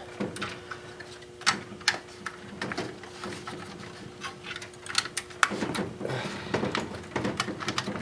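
Scattered clicks, taps and rustling of hands working inside a desktop computer case, pulling the CPU fan cable off its motherboard connector, over a faint steady hum.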